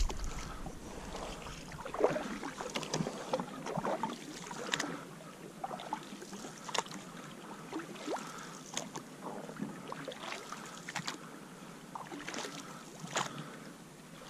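Canoe paddles dipping and pulling through calm lake water, with a short splash or drip at each stroke every second or so, over a faint steady hiss.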